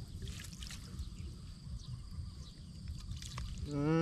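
Water splashing and trickling as a fishing net is handled in shallow water, over a steady low rumble. Small scattered clicks and splashes run throughout. Near the end a short wavering voice sound is heard.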